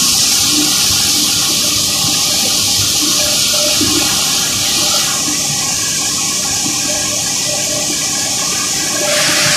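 Flour mill machinery running: a loud, steady rushing hiss of air through the mill's fans and pipes, its tone shifting slightly about five seconds in and again near the end.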